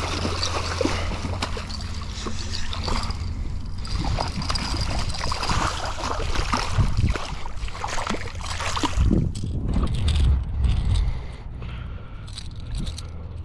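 Shallow water sloshing and splashing, with irregular small splashes and knocks over a steady low rumble.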